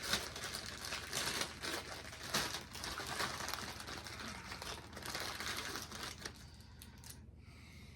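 Crinkling of a bag of wrapped chocolate bars being opened and handled, dense and irregular, dying down to a few faint rustles about six seconds in.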